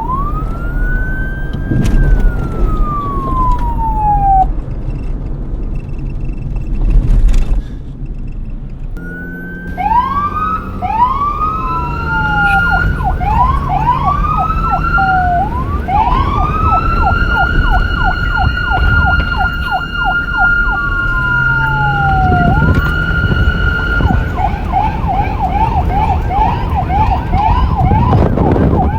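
Police car siren cycling through its patterns: slow rising and falling wails, stretches of quick rapid yelping, and a long held high tone, with a low rumble underneath.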